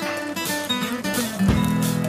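Background music with a plucked acoustic guitar, holding steady tones.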